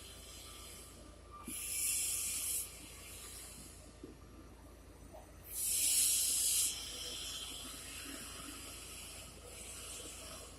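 Two bursts of loud hissing, each about a second long, the second a few seconds after the first, with fainter hiss between and a steady low hum underneath.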